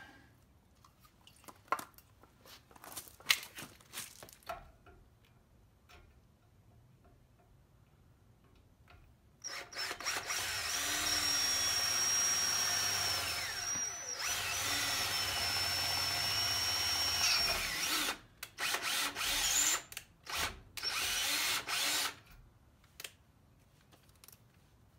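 Cordless drill boring a hole through the metal bracket of a boat-trailer swing-away tongue. It runs steadily with a high whine for about eight seconds, then comes in several short bursts before stopping. A few light knocks from handling are heard before the drilling starts.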